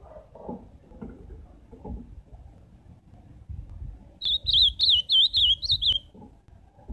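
Ultramarine grosbeak (azulão) singing one short, loud warbled phrase of quick notes sweeping up and down, about two seconds long, starting about four seconds in.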